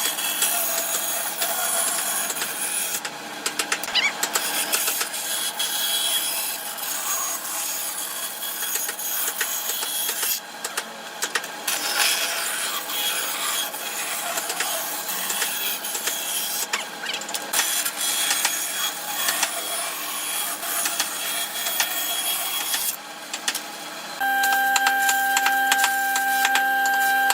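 Wood being worked with a tool, a continuous scraping and rasping of sawing or sanding, broken by short cuts between takes. About three seconds before the end it gives way suddenly to the steady whine of a small electric motor.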